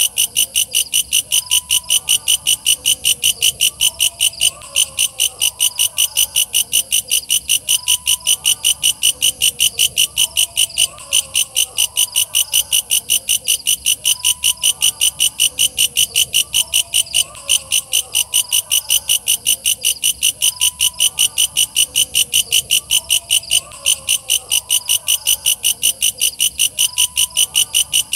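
Walang kecek bush cricket calling: a loud, shrill, rapid train of chirps, about four to five a second, pausing briefly every six seconds or so. A fainter wavering call runs underneath.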